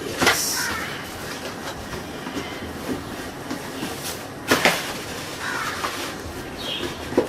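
Cardboard packaging being handled and opened: rustling and scraping, with a sharp knock near the start and another about four and a half seconds in.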